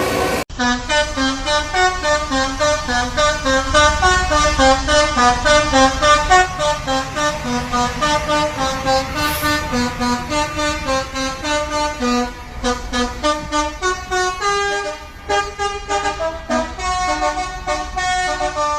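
Bus 'telolet' multi-tone air horn playing a fast tune of short notes stepping up and down in pitch, over the low rumble of a bus engine. The sound cuts off abruptly and restarts about half a second in.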